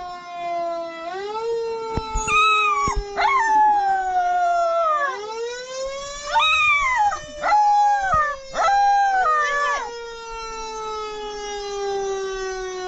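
A husky puppy howling along with a recorded fire-engine siren. The siren's slow wail rises and falls throughout, while the husky's wavering howls come as several short calls over it, from about two seconds in to about ten seconds.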